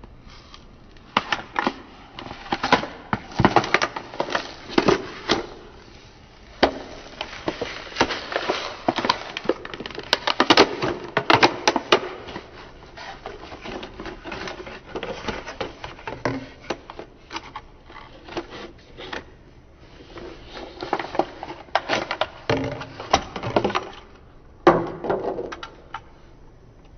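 Plastic blister pack and cardboard backing card of a die-cast toy car being cracked and torn open by hand: irregular crinkling crackles and sharp snaps in two busy spells, with one sharp snap near the end.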